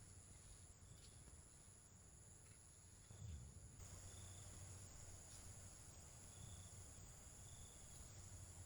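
Faint, high insect trilling, steady with short regular breaks, over quiet background rumble.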